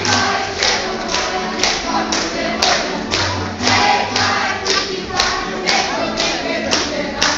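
Group of voices singing a Croatian folk dance song while the dancers' feet stamp on the stage floor in a steady beat, about two stamps a second.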